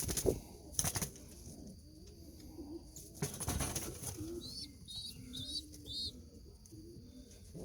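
Pigeons in a loft: short bursts of wing flapping at the start, about a second in and again a few seconds later, over low pigeon cooing, with four quick high chirps in a row near the middle.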